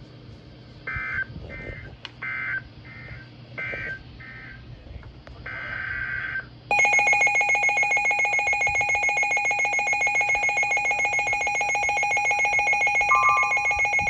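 Emergency Alert System tones: a run of short, shrill digital data bursts (SAME code) in the first six seconds, then, about seven seconds in, a loud steady two-tone attention signal that pulses rapidly, with a brief extra tone added near the end.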